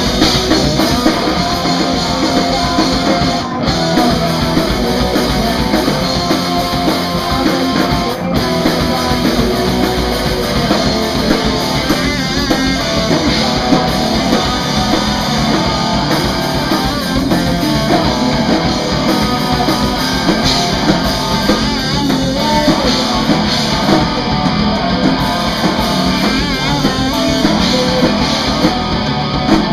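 Live rock band playing loud: Stratocaster-style electric guitar, drums and a singer at the microphone, with a brief drop about three and a half seconds in.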